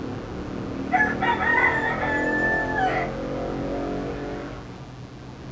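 A rooster crowing once, starting about a second in and lasting about two seconds.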